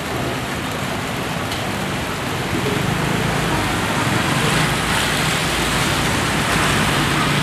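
Steady street traffic noise: engines humming under an even hiss, without a break.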